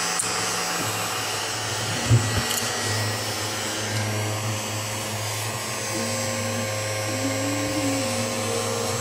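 Small battery-powered bumblebee-shaped mini desk vacuum (As Seen on TV 'Micro Vortex Motor') running steadily as it is pushed across a wooden desk. There is a single knock about two seconds in.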